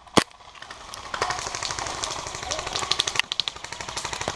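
One sharp, loud airsoft gun shot just after the start, then about a second in a fast rattle of airsoft fire that runs for about two seconds.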